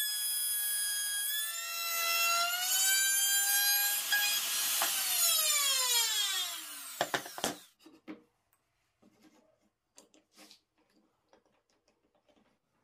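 Table saw cutting a slot in a plywood strip, its motor running with a steady whine that rises slightly a couple of seconds in. It is then switched off, and the whine falls away as the blade coasts down to a stop over about two seconds. A couple of sharp knocks follow, then only faint small clicks.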